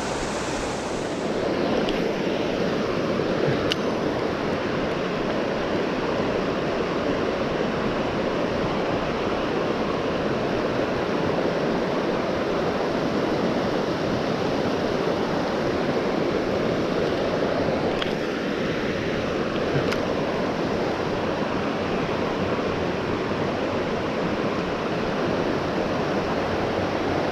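Steady rushing of flowing water, an even unbroken wash that holds at one level throughout, with a few faint ticks.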